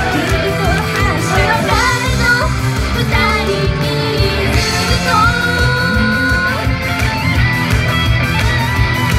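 Japanese idol pop-rock song played loud through a live-house PA: girls' sung vocals over a recorded band backing track with a steady drum beat and guitar. The vocals give way about halfway through to an instrumental passage with a long held note.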